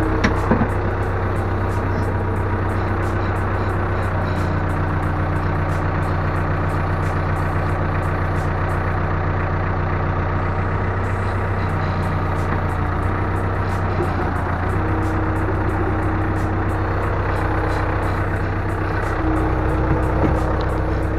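Backhoe engine running steadily, its note shifting a few times as the hydraulic stabilizer is lowered.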